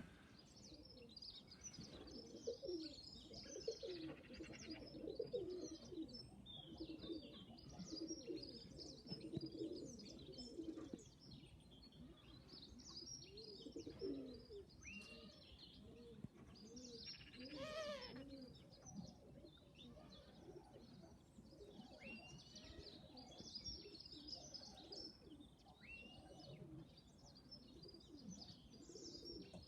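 Domestic pigeons cooing softly, with small birds chirping and twittering over them.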